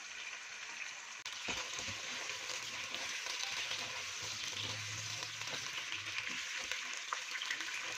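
Raw chicken pieces sizzling in hot oil with fried onions in a pot, being sautéed and stirred with a spatula. The steady sizzle grows louder a little over a second in, with the spatula scraping now and then.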